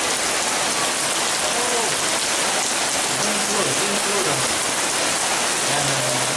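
Steady heavy rain falling. A few short, low pitched calls come through the rain in the second half.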